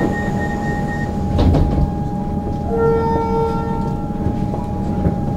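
Comeng electric suburban train standing at an underground platform: a steady whine from its onboard equipment over a low rumble. A rapid beeping stops about a second in, and a short pitched note, just under a second long, sounds about three seconds in.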